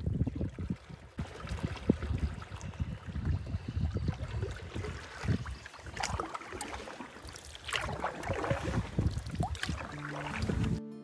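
Wind rumbling and buffeting on the microphone over water lapping around a canoe as it glides across a lake. Background music comes in just before the end.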